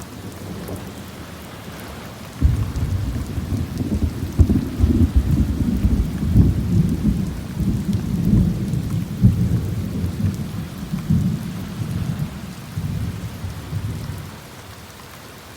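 Rolling thunder: a long low rumble that breaks in suddenly about two seconds in, rolls on with swelling peaks for about twelve seconds and fades near the end, over steady rain falling.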